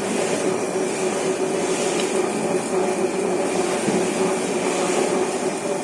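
A motor running steadily, a constant hum under an even hiss.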